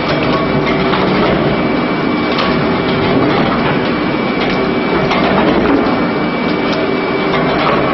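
Heavy industrial machinery running continuously, with a thin steady whine, a low hum and irregular clanks and knocks.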